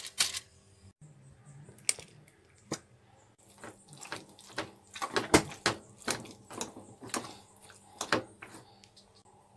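A spoon mashing and stirring boiled potatoes with butter in an aluminium pot: irregular clinks and knocks against the pot, most between about two and eight seconds in.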